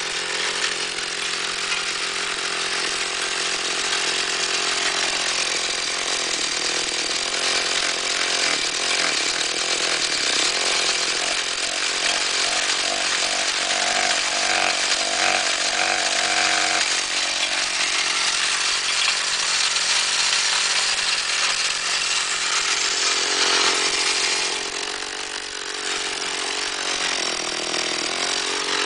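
Two-stroke chainsaw engine mounted on a bicycle, running at high revs and driving the rear wheel through a chain. The revs dip briefly near the end and pick up again. The gearing is too tall, with a 15-tooth front sprocket and a small rear one, so the engine spins the wheel way too fast.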